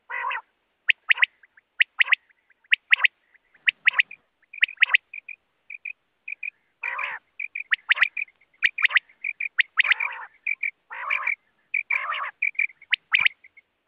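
Quail calling, typical of the common quail: sharp clipped notes, often in pairs, repeat about once a second. Several longer, rougher, lower calls are mixed in among them.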